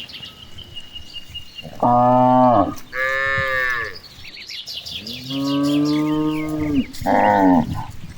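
Cows mooing: four separate moos, the second higher pitched than the rest and the third long and drawn out.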